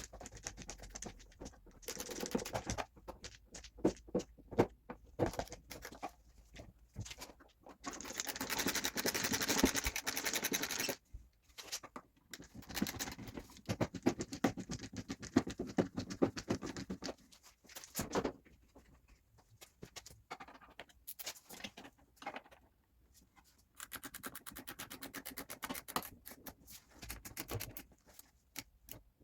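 Irregular scratching and rustling from hands-on work, made of dense crackly clicks and short rasps, with a longer continuous rasp about eight seconds in.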